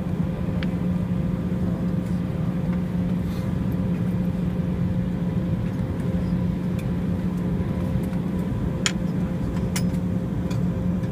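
Steady cabin noise of an Embraer 190 jet taxiing, heard from inside the cabin: a constant low drone with a steady hum, and a few faint clicks.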